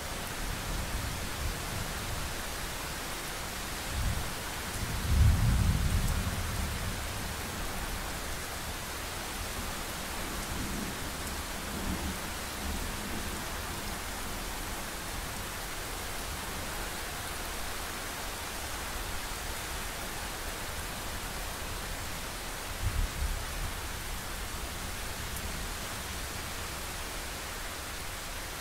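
Thunderstorm: rolling thunder over a steady hiss of rain. A short rumble comes about four seconds in and the loudest, longest one just after it. Weaker rumbles follow around twelve seconds and near twenty-three seconds.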